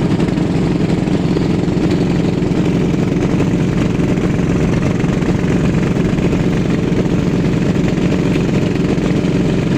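Small boat's engine running steadily under way, an even low drone with no change in speed.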